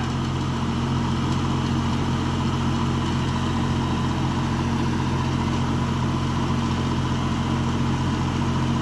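Steady machine drone with a low, even hum.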